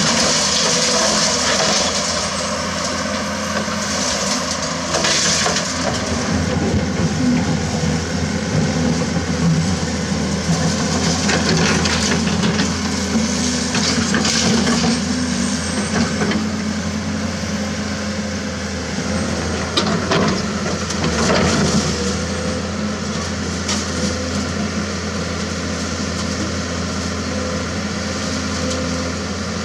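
Komatsu PC200-6 excavator's diesel engine running steadily under hydraulic load, with several short crunches and cracks as broken concrete and rebar are scraped and moved.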